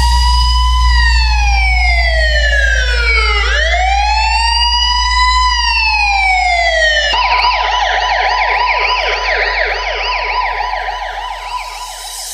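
Police-style siren sample in a DJ sound-check track, over a sustained deep bass note. It sounds two slow wails that rise and fall, then about seven seconds in switches to a rapid yelp.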